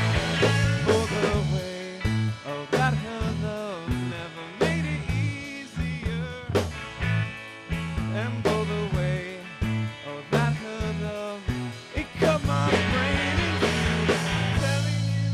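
Live rock band playing: electric guitars through amplifiers and a drum kit, with a man singing at the microphone.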